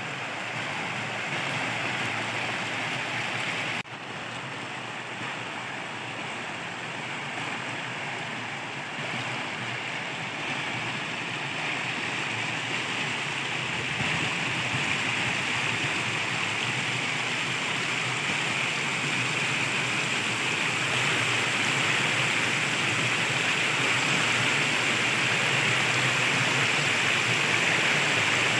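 Shallow stream water rushing and splashing over a flat rock bed, a steady rush that grows gradually louder, with a brief dropout about four seconds in.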